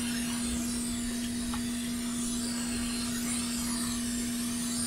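Hot air rework station blowing hot air: a steady rush of air with a constant hum.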